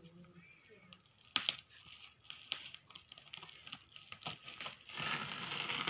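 Packaging crinkling and rustling as it is handled, with a few sharp clicks and knocks; the rustling grows louder near the end.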